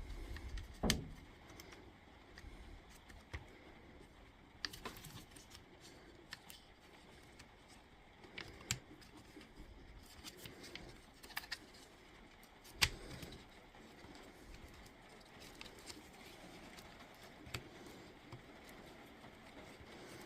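Faint, scattered clicks and taps of the angle grinder's plastic and metal parts being handled on the bench during reassembly after soldering, with the sharpest knocks about a second in and near the middle.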